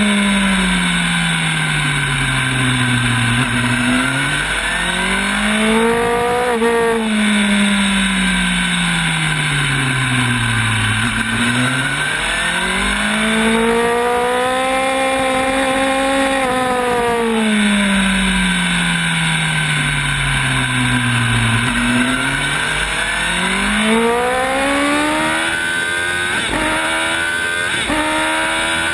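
Sport motorcycle engine at track speed: the revs fall and climb again three times, slowing for and pulling out of corners, with quick upshifts near the end. Steady wind rush over the rider's camera.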